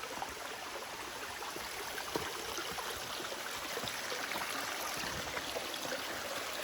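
A rocky forest stream flowing steadily, with water rushing and burbling over stones.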